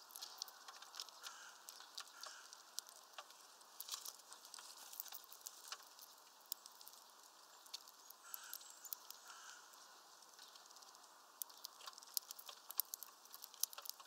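Irregular sharp clicks and taps of European greenfinches and a great tit feeding at a seed and peanut feeder, beaks cracking seeds and pecking, growing busier near the end.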